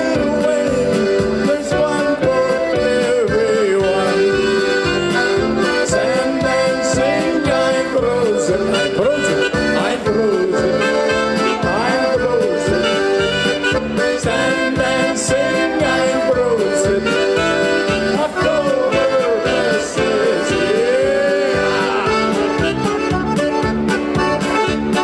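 A polka played live on accordion with keyboard backing over a steady beat.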